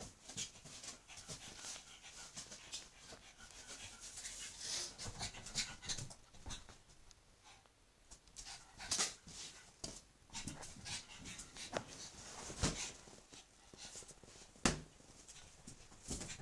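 A Shih Tzu panting hard while it plays with a rubber balloon, with scattered short knocks and rubs as it bats and bites the balloon. The two loudest knocks come near the end.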